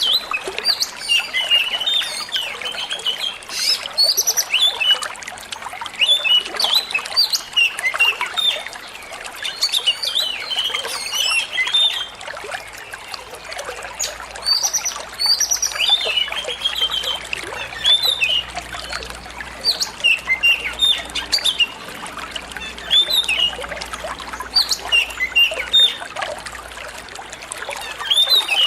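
Oriental magpie-robin (kacer) singing in rapid bursts of short chirps and whistles over a steady sound of trickling, flowing water.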